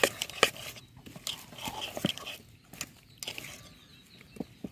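Scattered sharp clicks and taps of kitchen utensils against a vessel while cassava cake batter is mixed, growing sparser in the second half.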